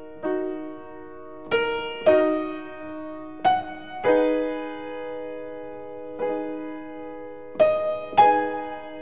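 Background piano music: gentle single notes and held chords, each struck and left to ring.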